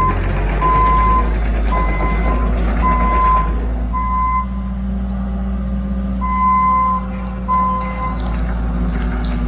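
A working machine's backup alarm beeping about once a second over its engine rumble, pausing for a couple of seconds midway and then resuming while the machine reverses.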